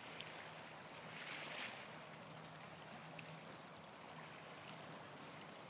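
Faint shoreline ambience: an even hiss of water and wind, with a faint steady low hum underneath.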